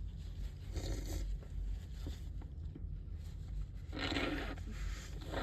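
A person with a badly stuffed-up nose sniffling: three noisy sniffs or breaths through the nose, about a second in, around four seconds in, and again at the end.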